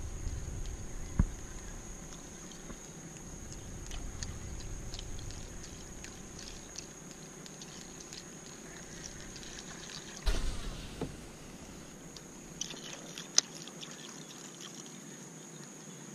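Outdoor ambience on a kayak on open water: light wind rumble, a faint steady high-pitched whine, and scattered small clicks, with a sharp knock about a second in, a louder thump about ten seconds in and another sharp knock near the end.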